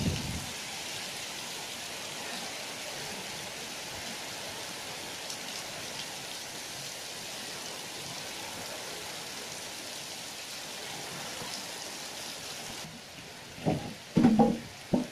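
Heavy storm rain falling steadily, a dense even hiss of rain on leaves and ground. Near the end the hiss drops away and a few short, loud low bursts break in.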